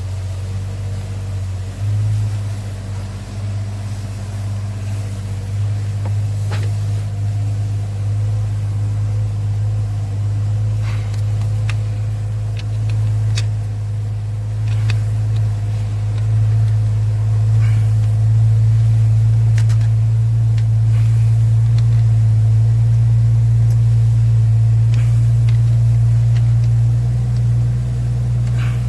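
2015 Chevrolet Silverado's 5.3-litre V8 running at a steady idle, with a few scattered sharp ticks. The engine has a misfire and valve-train noise from a failed lifter that is not holding oil pressure.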